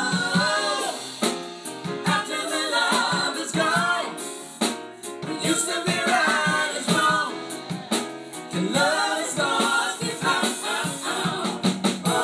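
Live band playing a soul ballad: a male lead singer sings with runs that glide up and down over grand piano and drums, with backing vocals.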